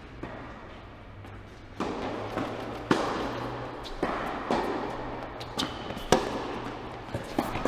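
Tennis rally in an indoor hall: sharp racket strikes on the ball about every second and a half, with softer ball bounces between them, each echoing briefly, over a steady low hum.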